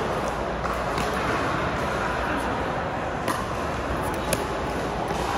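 Pickleball rally: paddles striking the plastic ball with a few sharp pops spread over the seconds, the loudest about four seconds in, over steady background noise of the hall.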